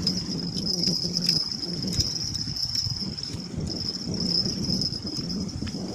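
Insects chirring in a steady, high-pitched drone, over a low rush of wind and small waves lapping at the shore, with a few faint clicks.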